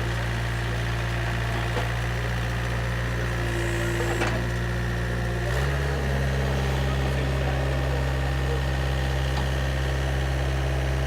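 Water-well drilling rig's engine running steadily while drilling a borehole, its tone changing abruptly about halfway through as the load or speed shifts.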